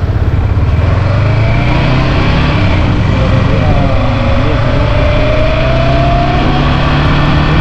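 Motorcycle engine running steadily under loud road and wind noise, with a faint tone that climbs slowly in pitch through the middle.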